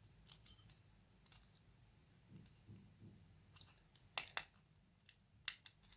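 Scattered small clicks and taps of handlebar-bell parts being handled as a thin plastic shim ring is fitted into the bell cap; the loudest, a quick pair of clicks, comes about four seconds in.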